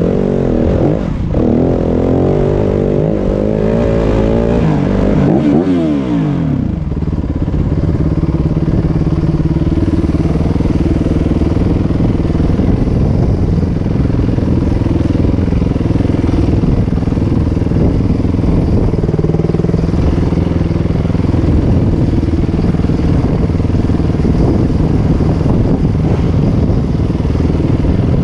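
Yamaha WR250F dirt bike's 250 cc four-stroke single-cylinder engine under way. It revs up and down for the first several seconds, then runs steadier at a more even throttle from about seven seconds in.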